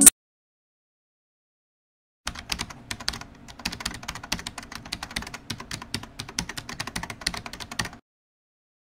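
Computer keyboard typing sound effect: a fast, irregular run of key clicks starting about two seconds in and lasting about six seconds, then stopping abruptly.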